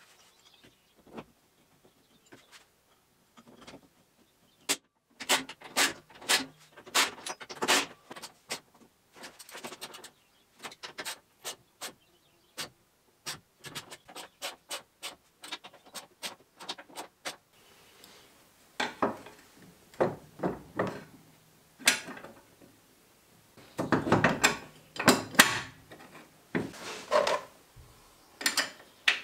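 Hand work on a vehicle in the workshop: scattered clicks, knocks and scraping as tools and metal parts are handled, coming in a few short busy flurries with quiet gaps between.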